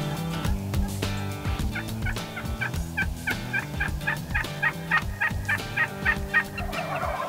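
Wild turkeys calling from a flock of hens and jakes: a quick series of short repeated notes, about three a second, starting about a second and a half in and growing louder before stopping near the end.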